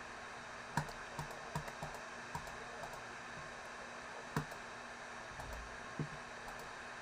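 Irregular clicks of a computer keyboard, a quick cluster in the first three seconds and then single clicks about four and a half and six seconds in, over a steady background hiss.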